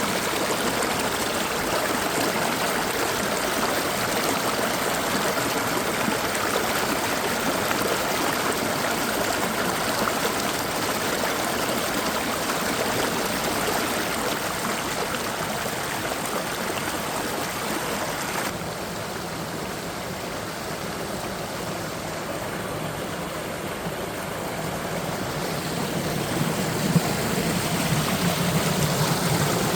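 Mountain stream water rushing and splashing over rocks, a steady wash of sound. About two-thirds of the way through it changes abruptly to a duller, less hissy sound.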